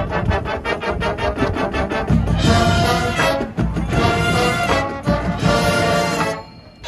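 High school marching band playing live, brass to the fore: about two seconds of rapid repeated notes, then full held brass chords that cut off just before the end.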